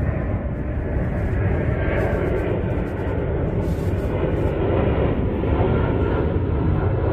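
Steady low rumbling noise that stays at an even, fairly loud level throughout.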